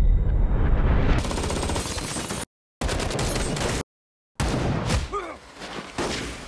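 Rapid automatic gunfire in a dense volley, cut off abruptly twice by brief moments of dead silence, then resuming more raggedly.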